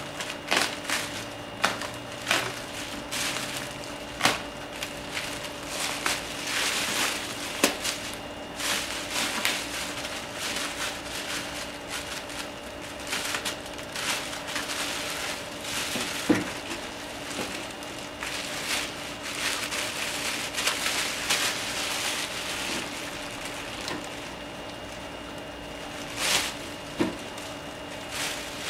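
Plastic wrapping bag rustling and crinkling in irregular bursts as it is slit open and pulled off a machine, with a few sharp clicks and knocks of handling, the loudest about 16 seconds in.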